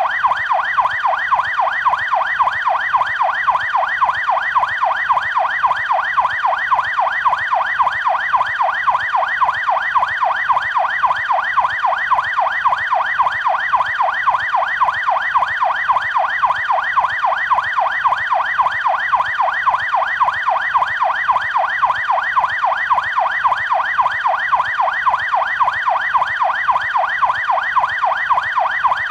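Canadian police car siren on its yelp setting: a fast, unbroken series of rising wails, each sweeping up in pitch and dropping back, about three to four times a second.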